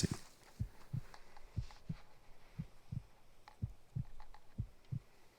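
Heartbeat sound effect: steady low double thumps, lub-dub, repeating evenly, with a few faint light ticks over them.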